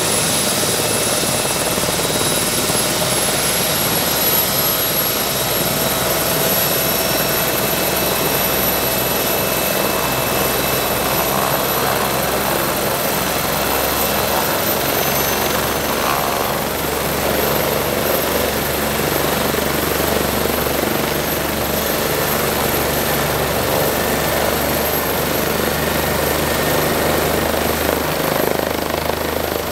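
Bell 407 helicopter running on the ground with its rotors turning: the Rolls-Royce 250 turboshaft whines steadily over the thrum of the main and tail rotors. The high whine creeps slowly up in pitch.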